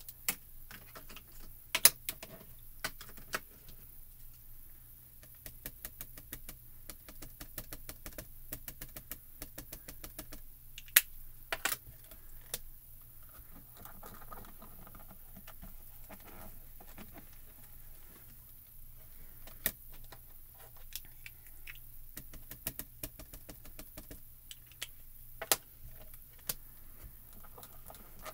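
Light scattered taps and clicks with a soft patter from rubber stamping: a clear stamp being dabbed with ink, then pressed down by hand onto card through the acrylic door of a MISTI stamp positioning tool. A handful of sharper clicks stand out, about 2 s in, around 11 s and near the end.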